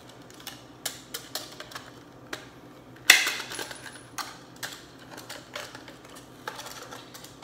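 Hand-held metal cutters snipping at metal: scattered small metallic clicks, with one loud sharp snap about three seconds in.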